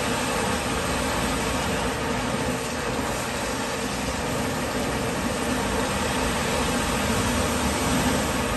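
Water gushing steadily out of a drain pipe into a sewer pit around a high-pressure drain-jetting hose, over the steady hum of the jetting machine.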